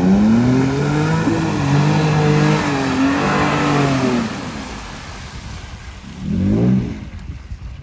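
Toyota Tacoma pickup's engine revving hard as the truck ploughs through a deep mud rut, with muddy water spraying off the tires. The engine pitch rises and falls for about four seconds, then one more short rev near the end as it pulls away.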